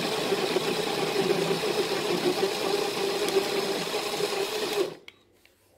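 A portable rechargeable juice-cup blender's small motor runs steadily, blending strawberries, carrots and ice, then stops suddenly about five seconds in. The user takes it to be struggling with ice too big for it to handle.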